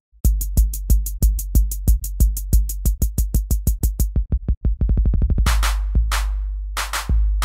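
Electronic music with a drum-machine beat. It comes in a quarter second in with fast, even ticks over a deep, booming bass. The ticks speed into a rapid roll near five seconds, then heavier clap-like hits take over.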